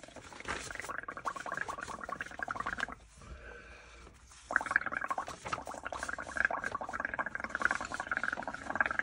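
Air blown through a straw into a tub of soapy paint, bubbling and gurgling continuously. It eases off for a moment about three seconds in, then starts again louder.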